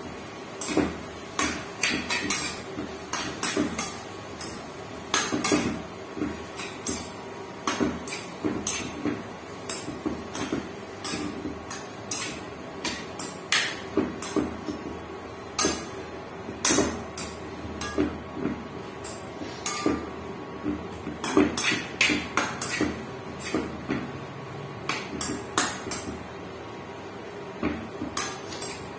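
Metal spoon clinking and scraping against a frying pan as chicken is stirred, in repeated irregular knocks, with a faint steady hum underneath.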